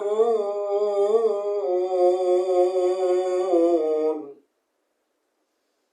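A qari chanting Quran recitation, drawing out the final vowel of 'yubsirun' in a long, wavering melodic line. The voice stops about four seconds in, and silence follows.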